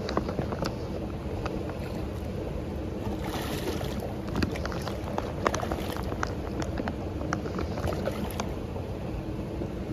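Hatchery fish splashing and slapping at the water surface as they feed on thrown fish food: scattered sharp splashes, busiest a few seconds in, over a steady low rumble.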